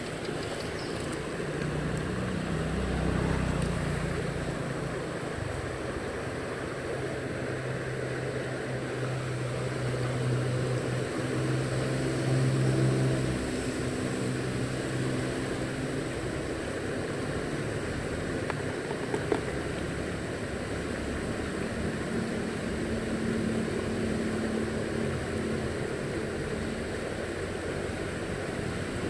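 Engine of a passing motor vehicle humming steadily, swelling twice and fading out a little before halfway; a fainter, higher engine hum passes in the last third. A steady background hiss runs underneath, with one short click about two-thirds through.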